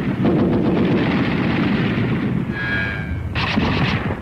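Battle sound: a continuous din of small-arms gunfire over a deep rumble, with a brief high ringing tone about two and a half seconds in and sharper, louder cracks near the end.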